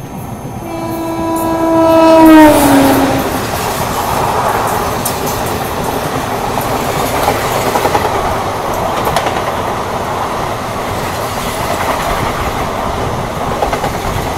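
An oncoming train's locomotive horn sounds for about two seconds and drops in pitch as it passes close by. Then the passing coaches run alongside with a steady loud rush and wheel clatter on the next track, heard from an open door of a moving train.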